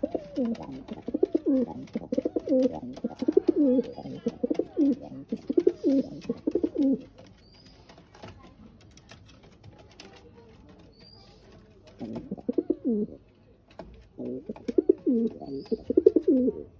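Domestic pigeons cooing in repeated low rolling calls. A long run of coos is followed by a pause of several seconds, then two shorter bouts near the end.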